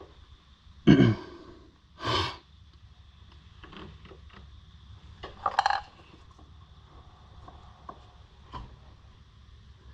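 Metal hand tools and parts clinking and scraping in a few separate bursts, the loudest about a second in, with small clicks in between.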